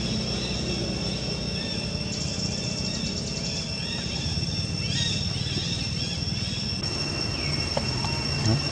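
Steady outdoor background noise: a continuous low rumble with two steady high-pitched tones above it. A short run of fast, rapid pulses comes about two seconds in, a few brief chirps about five seconds in, and a soft knock near the end.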